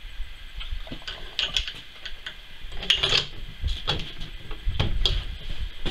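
Irregular metallic clicks and knocks as a .50 BMG cartridge is loaded into a Safety Harbor Firearms SHTF 50 rifle and its action is handled, the loudest about three seconds in.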